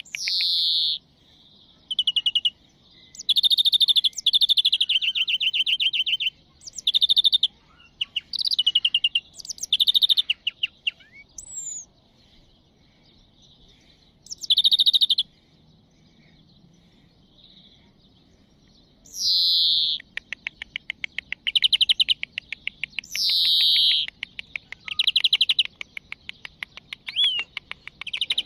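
European greenfinch singing: bursts of fast twittering trills broken by pauses, with several drawn-out wheezy notes that slide downward, and a long rapid trill in the last third.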